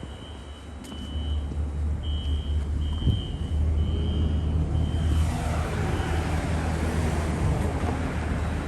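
Fire alarm horns inside the building sounding in short repeated blasts, the temporal code 3 evacuation pattern, heard faintly from outside. About five seconds in, the noise of a passing road vehicle swells and drowns the horns out.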